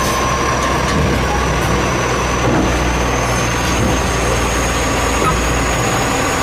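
A steady, loud mechanical hum with a low rumble and a constant high-pitched whine, like a vehicle engine running.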